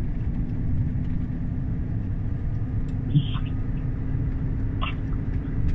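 Steady low rumble of a Renault truck's engine and tyres heard from inside the cab while driving, with a faint steady engine tone. A couple of short faint clicks come about three and five seconds in.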